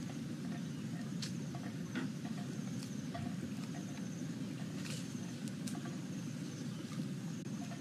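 Sharp snaps and rustles of dry grass and twigs as a person moves through undergrowth, over a steady low rumble. A high, pulsing call repeats every second or so.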